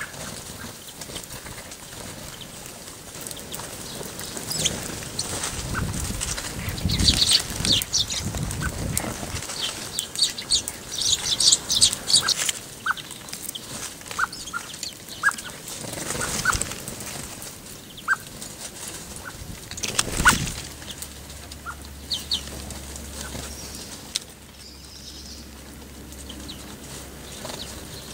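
Wings of small garden birds flapping close by as blackbirds, tits and sparrows land on and take off from the rim of a metal water tub, coming in several irregular flurries.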